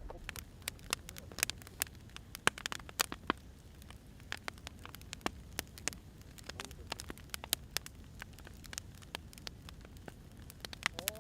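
Wood fire crackling: irregular sharp pops and snaps, a few louder than the rest, over a steady low rumble of flames.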